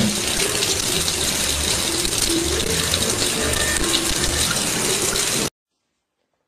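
Kitchen faucet running, a thin stream of water splashing into the sink in a steady rush. It cuts off abruptly about five and a half seconds in, leaving near silence.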